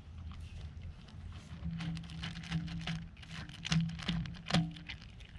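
Cat chewing and crunching food: a run of quick, crisp clicks and smacks, with two louder ones in the second half.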